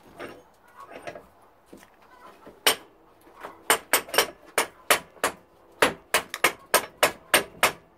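Hammer striking steel on an anvil: a run of about fifteen quick, ringing blows, roughly three a second, starting about three seconds in.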